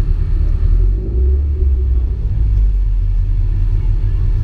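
Steady low rumble of a Subaru BRZ's flat-four engine and drivetrain as the car rolls slowly, heard from inside the cabin.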